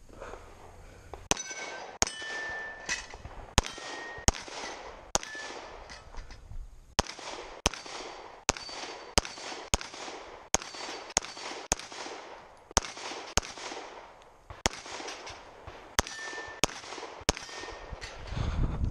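Semi-automatic pistol firing a long, irregular string of shots, about one to two a second, with a short pause partway through. Several shots are followed by a brief high ring of the bullet striking a steel target. A low rumble comes near the end.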